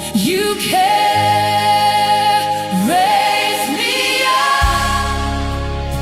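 Worship music: sung notes held over sustained keyboard-like chords and bass, with a choir-like sound.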